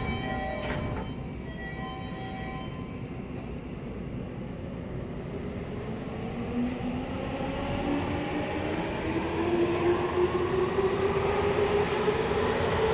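Toei 6500 series electric train pulling out: its traction-motor whine rises steadily in pitch and grows louder as it accelerates, from about five seconds in. Before that, a platform chime plays its last notes over the first two or three seconds, with a single knock about a second in.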